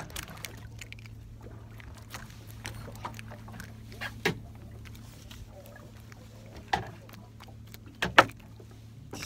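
A boat's engine running at idle with a steady low hum. Several sharp knocks sound on board: a couple at about four seconds, one near seven seconds and a loud double knock at about eight seconds.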